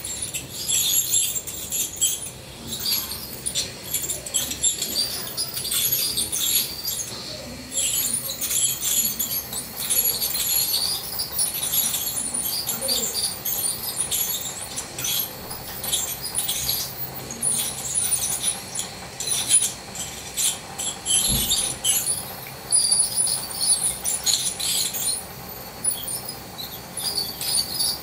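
Ultrasonic dental scaler tip working against a dog's teeth, with irregular high-pitched squeaks and crackles throughout.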